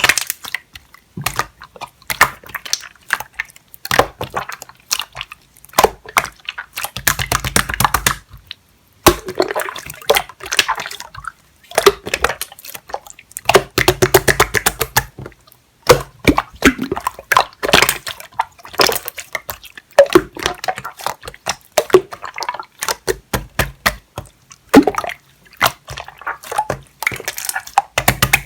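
Clear slime being squished and worked by hand: dense, irregular wet clicks and small bubble pops, with a couple of longer squelches where it is pressed.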